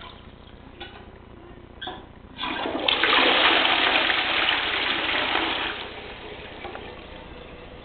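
Fanaloza washdown toilet flushing. There is a short click about two seconds in, then a loud rush of water through the bowl for about three and a half seconds, which fades down near the end.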